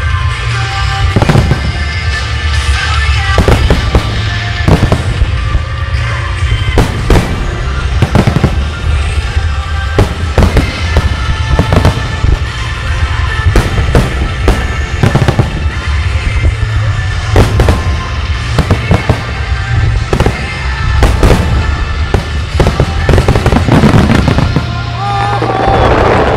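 Japanese fireworks display: aerial shells and starmine barrages bursting in rapid, repeated sharp bangs, about one or two a second, with crackle. Music plays throughout. The bursts grow denser toward the end in a finale barrage.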